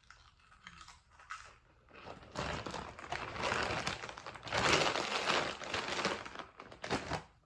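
Empty plastic chip bag being crumpled and squeezed in the hands, a dense crinkling that starts about two seconds in and stops shortly before the end.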